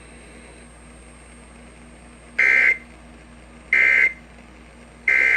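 Emergency Alert System end-of-message code: three short, identical bursts of buzzing digital SAME data, each about a third of a second long and a little over a second apart, starting about two and a half seconds in. Faint radio hiss comes before them.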